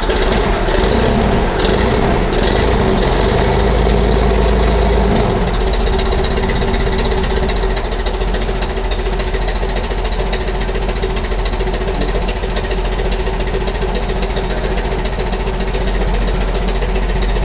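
Austin LD van's engine running just after start-up, with a rapid, even knocking beat. It runs a little harder for the first five seconds or so, then settles to a steady idle.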